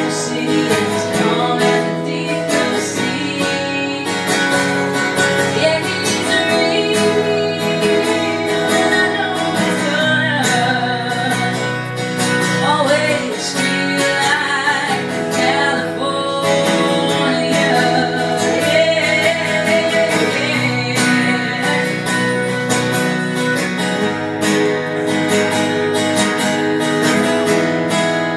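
Acoustic guitar strummed in a steady rhythm while a woman sings into the microphone, a live solo acoustic performance.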